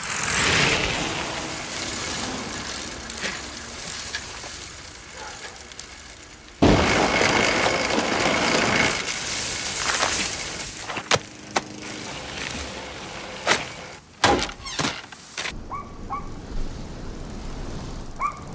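A bicycle rolling over dry fallen leaves on a street, with crackling and rustling. It comes in suddenly about a third of the way in after a steady outdoor hiss, and is followed by several sharp clicks and a few short chirps near the end.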